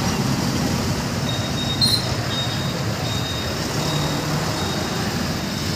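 Mixed road traffic crossing over the tracks: motorcycle and truck engines running in a steady low rumble. A thin, high, steady tone sounds for a couple of seconds, with a short chirp about two seconds in.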